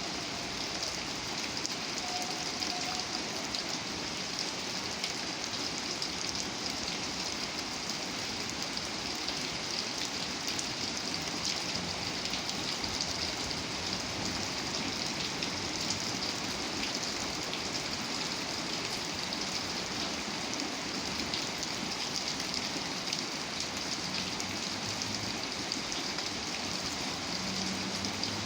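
Steady rain falling: an even hiss with individual drops ticking through it.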